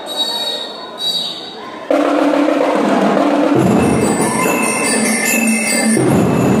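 A shrill whistle blown briefly twice, then a school drum and lyre corps strikes up suddenly about two seconds in: bell lyres ring out a melody and the drums come in heavily a second or so later.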